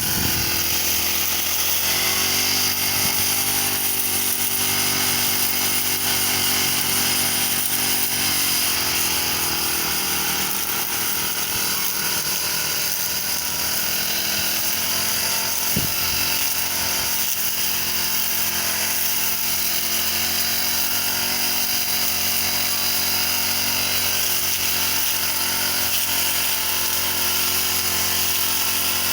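Brush cutter engine running steadily while cutting grass, its pitch shifting slightly a few times.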